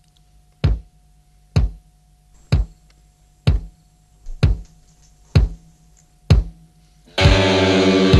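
Trailer-style music: deep drum hits about once a second over a faint held tone, with a quick double hit midway, then about seven seconds in a loud full band of music comes in.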